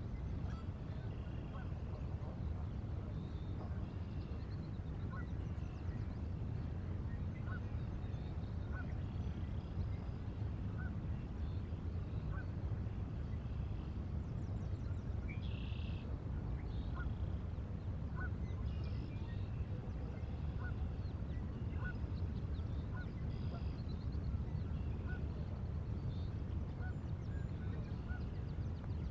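Scattered short bird calls, many of them, over a steady low outdoor rumble of wind and river.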